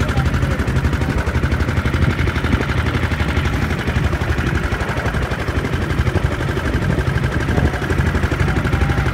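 Small river boat's engine running with a fast, even chugging that holds steady throughout.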